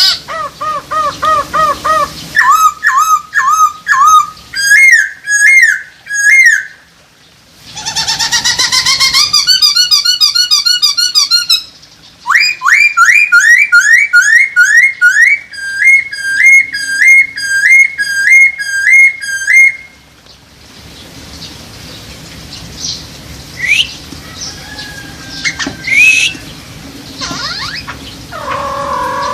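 Poksay hongkong laughingthrush singing loud whistled phrases, each a quick run of repeated, evenly spaced notes, one phrase after another with short pauses. In the last third the calls turn quieter and sparser.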